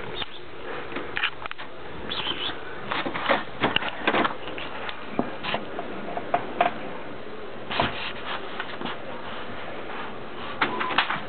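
Inkjet printer printing, its cartridge carriage sliding back and forth with irregular clicks and knocks.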